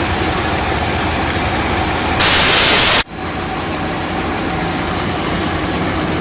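Chevy 350 V8 of a 1990 G30 RV running steadily on a test run after a water pump replacement. About two seconds in, a loud burst of static-like hiss covers it for just under a second and cuts off suddenly.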